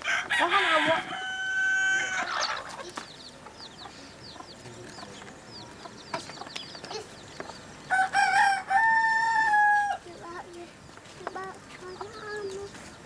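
Rooster crowing twice, once at the start and again about eight seconds in, each crow ending on a long held note. Faint chirping between the crows and short clucks near the end.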